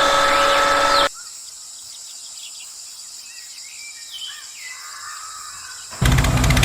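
Birds chirping over a steady insect-like hiss. A loud machine sound with a steady whine cuts off about a second in, and a loud low-pitched engine or motor starts abruptly near the end.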